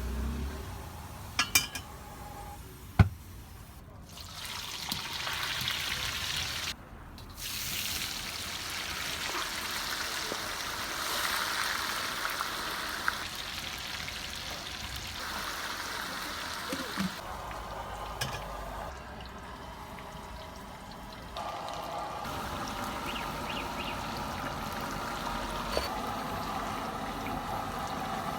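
Food cooking at a street stall: a steady hiss and sizzle of frying, changing at several cuts, with a few sharp utensil clinks in the first few seconds.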